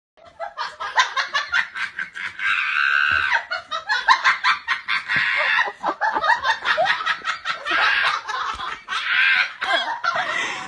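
Human laughter in quick repeated bursts, with snickers and belly laughs running on throughout.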